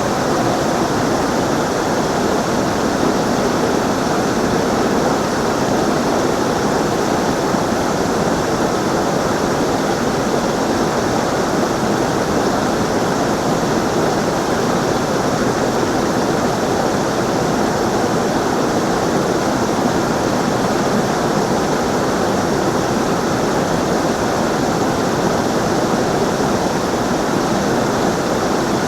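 Running water rushing steadily, a dense even hiss with no breaks or change in level.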